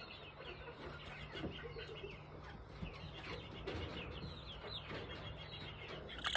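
Appenzeller Spitzhauben hen making a run of soft clucks and small high chirps while being stroked: the quiet, contented sounds of a happy chicken.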